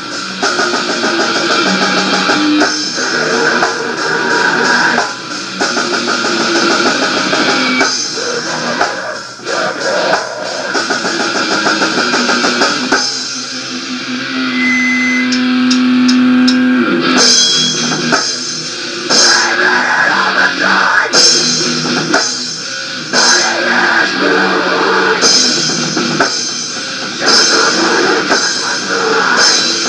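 Rock band playing: electric guitar and drum kit. About halfway through, the band drops out to a single held guitar note for a few seconds, then the full band comes back in with cymbal hits.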